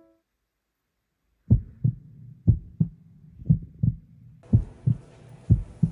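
Heartbeat sound effect: paired lub-dub thumps about once a second, starting about a second and a half in, conveying nervousness. A steady background hiss comes in near the end.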